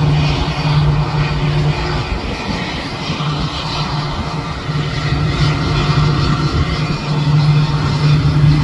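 Jet engines of a Boeing 777-300 coming in to land, a steady loud rushing drone with an uneven low rumble beneath it.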